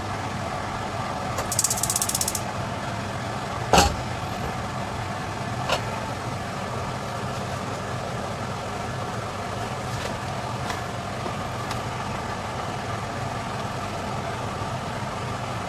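A steady mechanical hum, with a sharp knock about four seconds in and a few lighter clicks after it.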